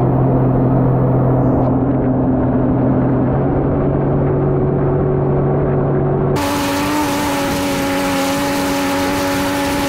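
Sea-Doo jet ski engine running at a steady cruising speed, a constant low hum. About six seconds in the sound changes abruptly to a louder rush of wind and water noise over a higher, steady engine whine.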